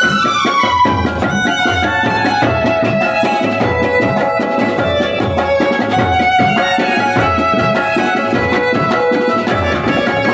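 Festival band music: a reed melody line, from a band of clarinets and saxophones, over a steady drum beat.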